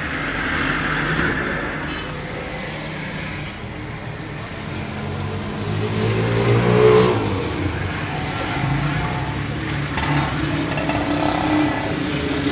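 Car engine and road noise heard from inside the cabin, steady, with an engine rising in pitch and getting louder about five seconds in, peaking around seven seconds and then falling away.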